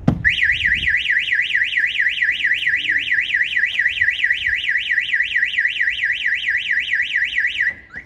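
Starline E96 v2 Solaris car alarm siren on a VW Transporter, set off by its impact sensor: a short thump as the van's window is pushed, then a loud, fast warbling wail that sweeps up and down about four times a second. It cuts off near the end as the alarm is disarmed with the remote.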